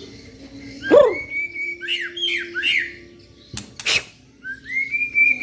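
White-rumped shama (murai batu) singing: a rising sweep into a long clear whistle, a run of three quick swooping notes, then another long whistle near the end. Two sharp clicks sound in between, a little past the middle.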